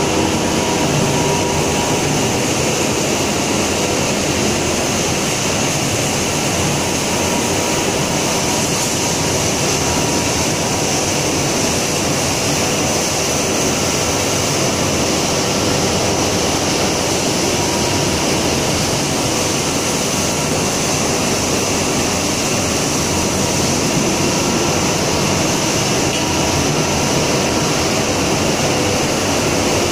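Organic fertilizer pellet production line machinery running: a loud, steady mechanical drone of motors, fans and conveyors, with a few faint steady tones in it.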